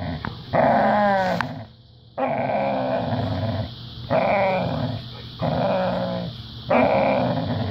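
Dog vocalizing in a run of about five drawn-out, wavering grumbles, each around a second long with short pauses between them.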